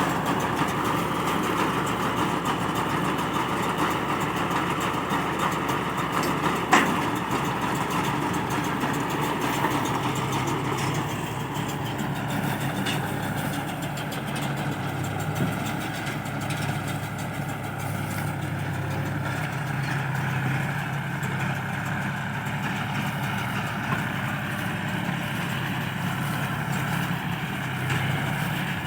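Tractor engine running steadily while driving a round baler, with one sharp knock about seven seconds in. About eleven seconds in, the sound settles into a deeper, steadier hum.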